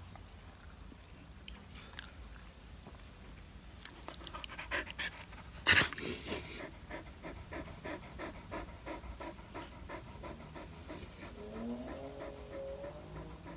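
A 14-year-old dog sick with cancer panting steadily with its mouth open, about three breaths a second. One loud, sharp breathy burst comes about halfway through.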